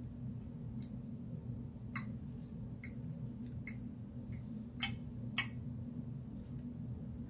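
Eating sounds close to the microphone: about a dozen short, sharp clicks and smacks at irregular spacing, the loudest two about five seconds in, over a steady low hum.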